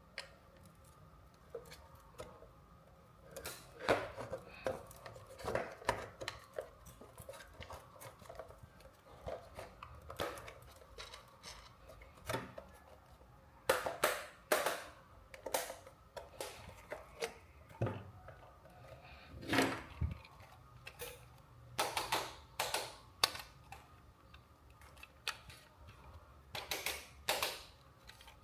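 Hands unpacking and handling plastic toy RC cars and their packaging: irregular clicks, taps and crinkles, some in quick clusters, over a faint steady hum.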